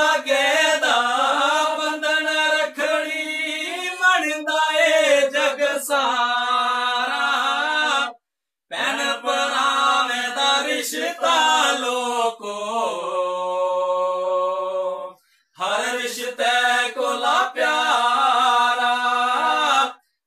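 Male voices singing a Dogri folk song in long, chant-like repeated phrases. The sound cuts out briefly twice.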